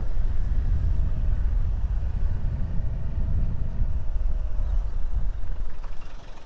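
Steady low wind rumble on a helmet-mounted camera microphone, mixed with a motorcycle running along a road. The rumble drops off a little near the end.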